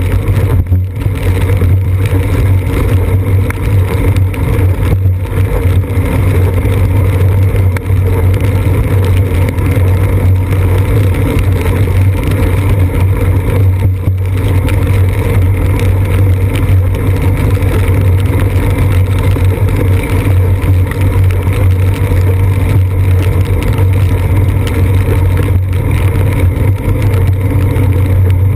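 Steady loud rumble of a bicycle rolling along a wet road, picked up as road and frame vibration by a GoPro Hero 2 camera mounted on the seat post.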